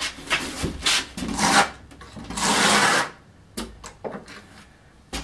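Trowel scraping and spreading thinset mortar over an OSB subfloor in a series of short strokes, with one longer, louder stroke just past the middle, then a few light ticks.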